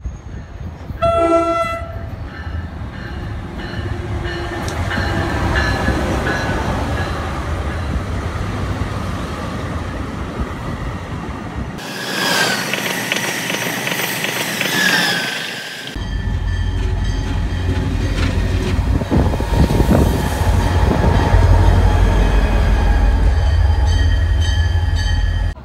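Three train sounds cut together. A train horn sounds briefly about a second in as a train approaches. From about twelve seconds an Amtrak Acela high-speed trainset passes at speed with a rushing noise and rapid wheel clatter. After a sudden cut near sixteen seconds comes the deep, steady sound of a CSX diesel freight locomotive's engine running close by.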